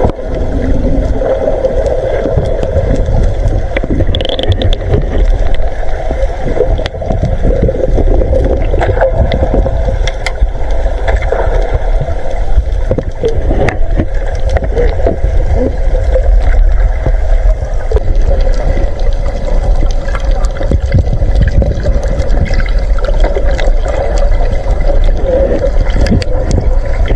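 Water heard underwater around a netted school of trevally: a dense, muffled rumble with a steady hum running through it and frequent short knocks and clicks.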